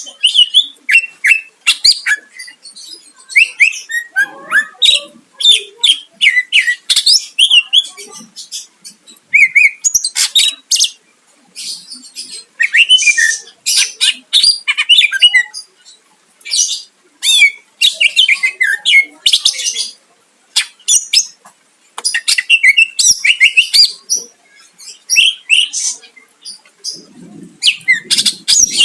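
Greater green leafbird (cucak ijo) in full song: loud, rapid bursts of varied chattering and whistled phrases, each a second or two long with short pauses between.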